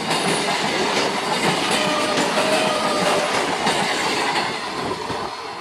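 An electric multiple-unit (EMU) local train passes at close range, its wheels clattering over the rail joints. A faint steady squeal comes from the wheels on the curve. The sound eases off near the end as the last coaches go by.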